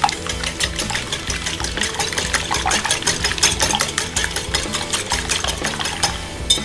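Four raw eggs being whisked by hand in a bowl: a rapid, steady run of clicks as the utensil beats through the liquid and strikes the bowl.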